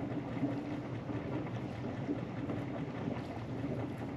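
Steady outdoor background noise: wind on the microphone, with a faint low hum that fades after about a second.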